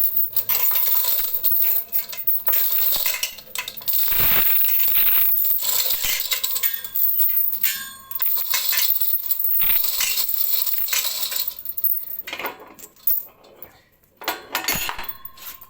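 Chain block being slackened off: its steel chain rattling and clinking through the block in long runs, with short pauses.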